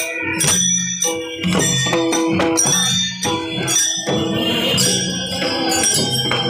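Devotional procession music: a group of men chanting in held notes, with small brass hand cymbals (taal) clashing in a steady beat and a barrel-shaped mridang drum.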